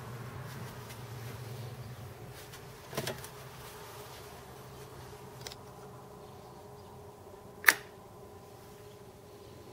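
Faint steady electric hum and whine from the bench test rig of a military starter/generator motor and Kelly SepEx controller, with a low hum fading over the first few seconds. A small click comes about three seconds in, and a sharp click, the loudest sound, comes near the end as a switch on the panel is worked.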